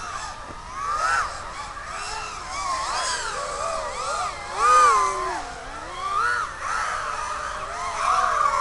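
FPV racing quadcopter motors and propellers whining, their pitch sweeping up and down quickly with the throttle. The sound swells loudest about a second, five seconds and eight seconds in.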